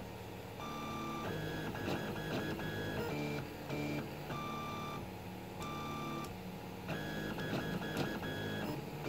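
Prusa-clone 3D printer printing a small test cube: its stepper motors sing in steady tones that jump to a new pitch with each move of the print head and bed. The same run of tones comes round again about five seconds later, over a steady hiss.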